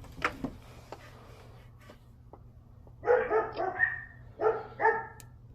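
A dog barking several short times in the second half, after a couple of light clicks near the start.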